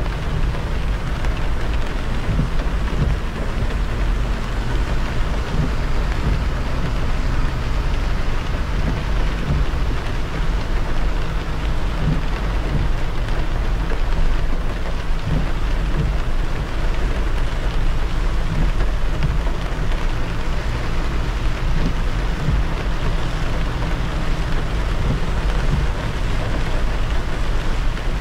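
A car driving on a wet expressway in steady rain: a constant hiss of rain and tyre spray over a deep, even road rumble.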